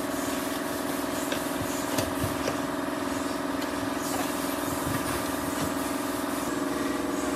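A steady mechanical drone from an engine or motor running at an even speed, with a few light knocks of sheet metal being handled.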